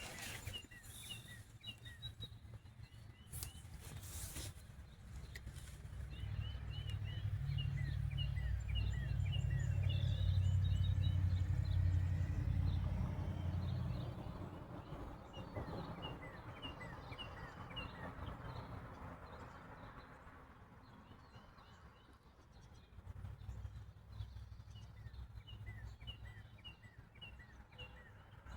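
Songbirds chirping repeatedly over outdoor ambience, with a low rumble that swells up about a quarter of the way in and fades again before the middle.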